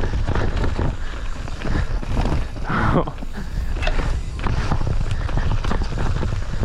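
Wind rumbling on the microphone, with repeated knocks and rattles from an electric mountain bike ridden fast over a rough trail.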